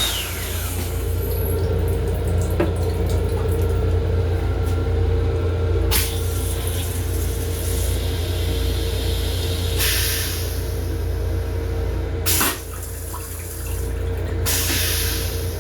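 Steady low rumble of the M7 railcar under way, with several short hissing bursts of running water from the restroom fixtures, the longest near the end.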